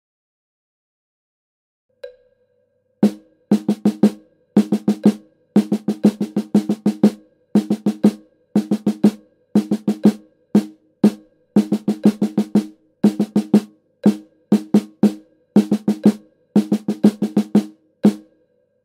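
Snare drum played with drumsticks: a single tap about two seconds in, then from about three seconds on a sixteenth-note-triplet sticking exercise, with quick clusters of strokes about a second apart. The playing stops shortly before the end.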